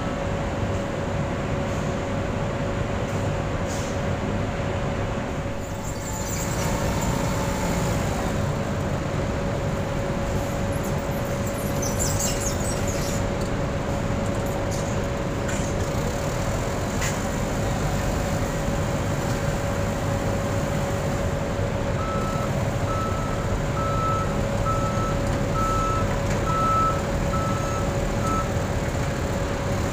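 Engine running steadily with a constant whine. About two thirds of the way through, a forklift's reversing alarm beeps about eight times, evenly spaced, as the forklift backs away from the loaded truck.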